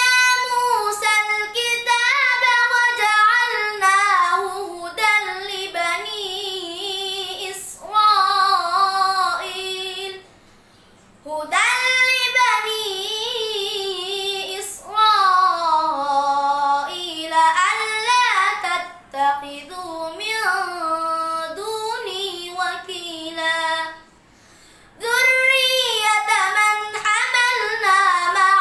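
A boy's voice reciting the Quran in the melodic, chanted tilawat style: long ornamented phrases that bend up and down in pitch. The recitation breaks twice for short breaths.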